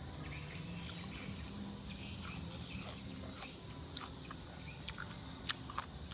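Scattered soft clicks and taps, irregular and unevenly spaced, over a faint steady low hum. The sharpest click comes about five and a half seconds in.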